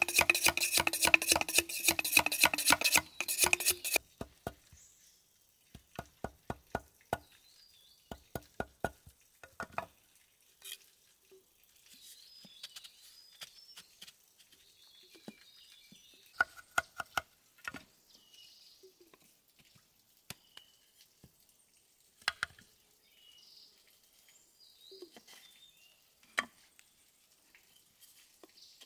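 A loud, rapid buzzing rattle for about the first four seconds, then scattered sharp knocks and taps of hands-on cooking work, some in quick runs. Faint bird chirps can be heard between the knocks.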